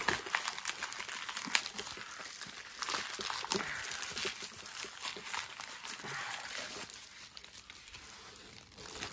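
Plastic poly mailer crinkling and rustling as hands tear it open and pull a black plastic inner bag out of it: a dense run of crackles that grows quieter near the end.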